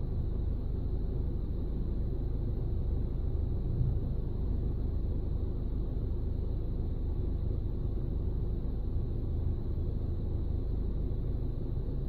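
Steady low rumble inside a car cabin, with one small bump about four seconds in.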